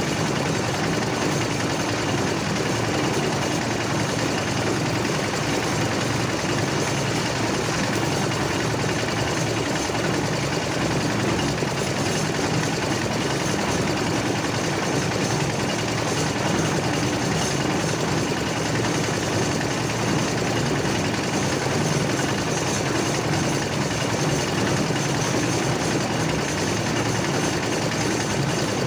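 Engine of a wheeled portable concrete mixer running steadily.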